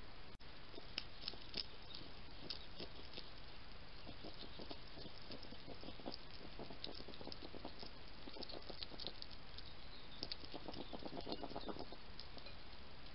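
European hedgehog eating dry food: irregular crunching and clicking chews over a steady hiss, with a dense run of fast chewing near the end.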